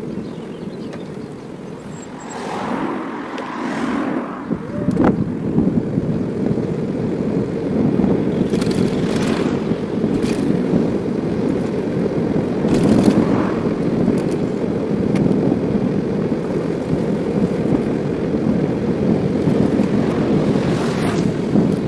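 Wind buffeting the microphone of a bicycle-mounted camera while riding, a steady low rumble, with the bike rattling over bumps a few times. A brief swell of noise comes a few seconds in.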